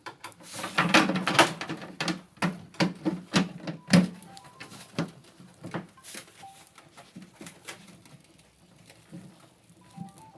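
A rapid run of sharp clicks and knocks over the first four seconds, then scattered single clicks, with a few faint short tones.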